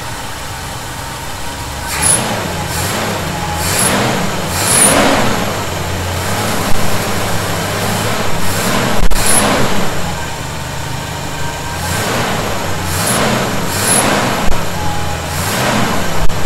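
1971 Chevy C10 pickup engine running just after a cold start, a steady low engine note under about a dozen short rushing bursts of hiss.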